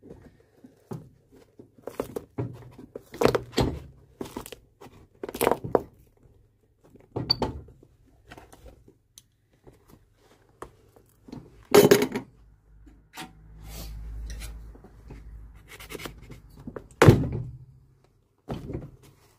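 Old leather sole and welt being pulled off a welted shoe with pincers, the welt stitches already broken: a series of short tearing and knocking sounds as they come away, loudest about twelve and seventeen seconds in. A low hum runs for a couple of seconds in between.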